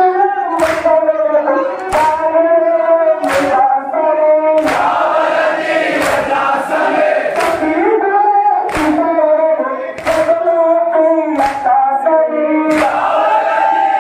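A crowd of men chanting a mourning lament (noha) in unison, with hands slapping bare chests together in matam on a steady beat about every second and a half.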